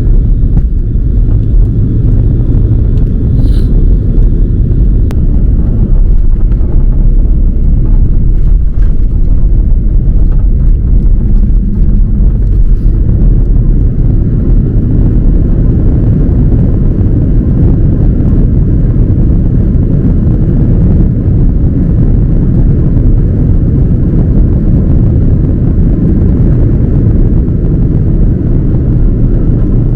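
Cabin noise of an Airbus A330-300 airliner as it lands: a loud, steady low rumble of the engines, airflow and runway.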